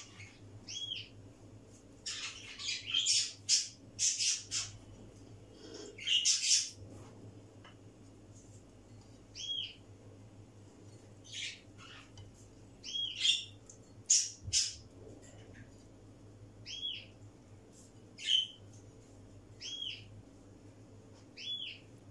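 A small bird chirping, single short rising-and-falling chirps repeated every second or two. Between them come louder rustling and light knocks from food being handled and laid in a glass baking dish.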